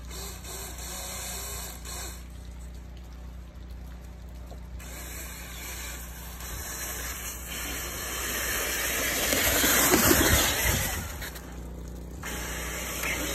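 Wind gusting on a phone microphone as a rushing, rumbling noise. It swells to its loudest about ten seconds in, then drops away.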